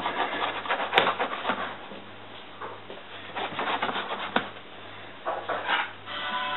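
Frying pan being shaken back and forth across a glass cooktop, its base scraping in three short bouts, to test whether the pancake has set underneath and slides freely.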